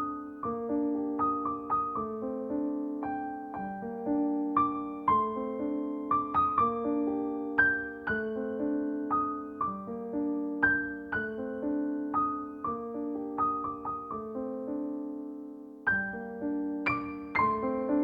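Background music: a gentle solo piano piece, notes struck one after another in a slow repeating phrase over held lower notes.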